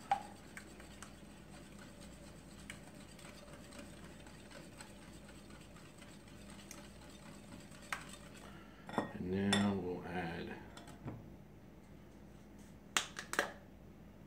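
Wire whisk beating an egg mixture in a glass bowl, the tines ticking faintly against the glass. About nine seconds in there is a short low voice sound, and near the end two sharp clinks.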